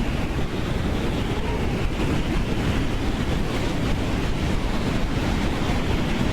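Strong wind rushing steadily, buffeting the microphone with a deep rumble.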